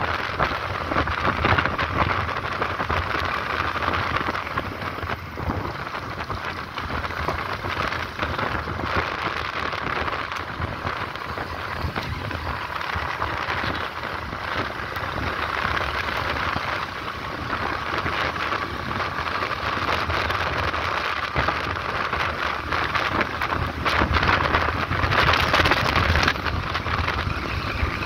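Wind rushing and buffeting over the microphone of a moving motorcycle, over the low hum of the bike's engine and the road, a little louder near the end.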